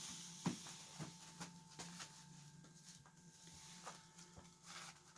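Faint rustling and scattered light taps of four-week-old Sheltie puppies moving about on blankets and potty pads in a plastic pool, over a steady low hum.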